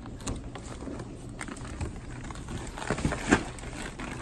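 Plastic fish bags and packing being handled in a cardboard shipping box: scattered crinkles and clicks, with a louder rustle about three seconds in.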